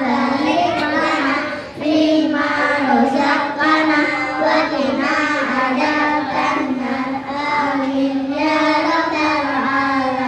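A group of young children chanting memorized daily Islamic prayers (doa) together in unison, in a sing-song recitation.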